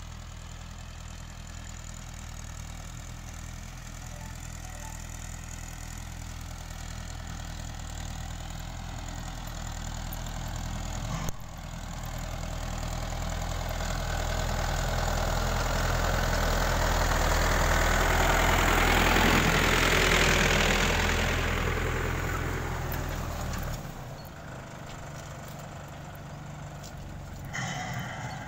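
Farm tractor's diesel engine running steadily while pulling a bed-former through tilled soil to make raised beds. It grows louder as the tractor comes close, peaking about two-thirds of the way through, then drops off sharply.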